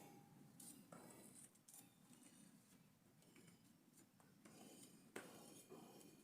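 Near silence, with a few faint scattered clicks and scrapes.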